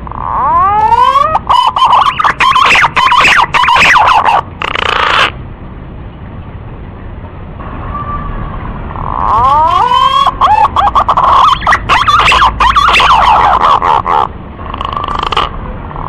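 Male pink-necked green pigeon (punai gading) calling, a lure call for drawing in wild green pigeons. There are two loud phrases of rising whistled notes that run into a fast warbling series. The second starts about nine seconds in, and a short extra burst comes near the end.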